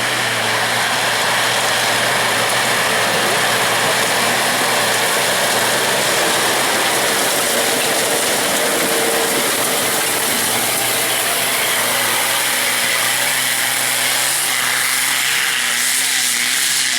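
Off-road 4x4 engine running hard under load on a loose-stone hill climb, with dense, steady noise over it; the engine note wavers up and down in the last few seconds.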